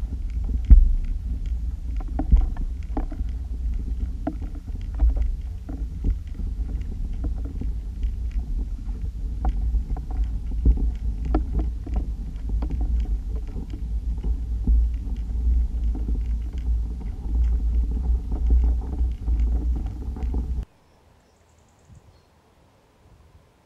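Muffled low rumble of moving water picked up through a submerged action camera's waterproof housing, with many scattered small clicks and ticks. It cuts off suddenly near the end.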